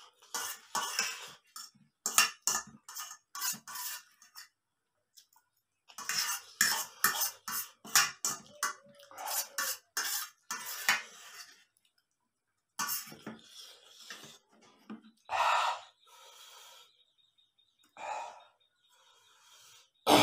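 Metal fork scraping and clinking against a metal plate while the last of the noodles are gathered up, in two quick runs of scrapes and taps, followed by a few scattered softer noises.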